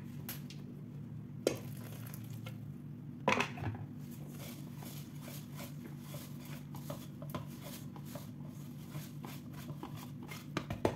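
Metal wire whisk stirring ragi and rice flour with just-boiled water in a stainless steel pot, its wires scraping and clicking against the pot. Two sharper knocks stand out in the first few seconds.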